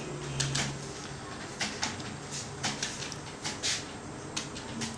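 Computer keyboard keys clicking under slow typing: irregular single keystrokes, often in quick pairs, about one to two a second.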